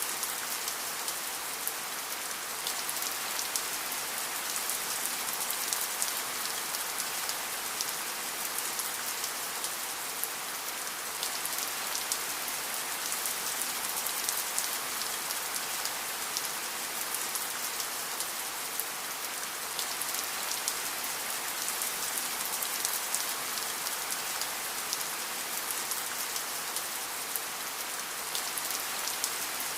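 Steady rain falling, an even hiss of many fine drop impacts pattering on a surface.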